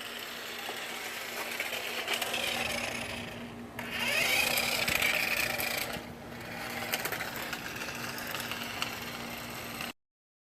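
Electric motor of a remote-control Porsche model car whining as it drives, rising and falling in pitch with its speed. The sound drops away briefly twice and cuts off suddenly near the end.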